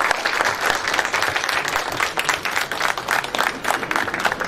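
Crowd applauding, a dense steady patter of many hands clapping, which thins out just after the end.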